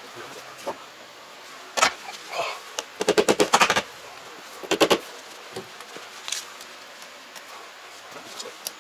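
A few sharp knocks, then a quick rattling run of about ten clicks in under a second, then another double knock. This is hard-object work noise on a door frame or tool during installation.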